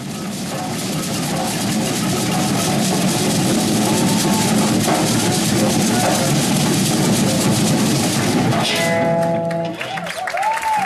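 Live ensemble music with dense, driving percussion and plucked strings, ending about nine seconds in on a held chord; cheering voices start near the end.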